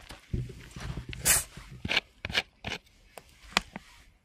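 Plastic soda bottle of foaming cola and toothpaste handled and its screw cap twisted off: a run of sharp crackles and clicks, the loudest a short noisy burst about a second in.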